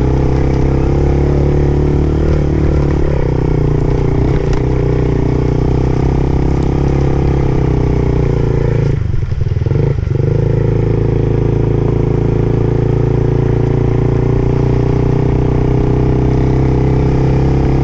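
Dirt bike engine running at fairly steady revs, briefly dropping off twice about nine and ten seconds in before picking back up.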